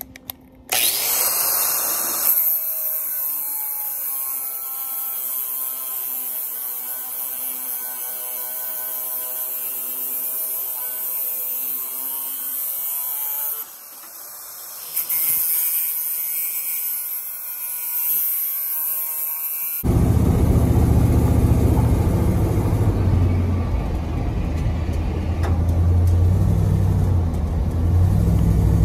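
A power tool whirring with a loud hiss and a whine that rises and falls slightly. About two-thirds of the way in it gives way to a low, pulsing engine sound: the truck's rebuilt Ford 360 V8 running.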